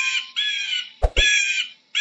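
An eagle giving a run of harsh, repeated calls, each about half a second long and falling slightly in pitch, coming roughly every 0.8 seconds. Two sharp clicks sound about a second in.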